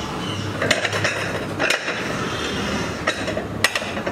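Metal utensils clinking and knocking against a steel griddle: about five sharp clinks spread over a few seconds, over a steady background hum.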